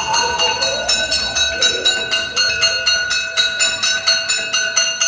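A metal bell struck over and over in a quick, steady run, its ringing tones carrying on between strikes: the alarm signal for an evacuation drill. Children's voices are faintly underneath.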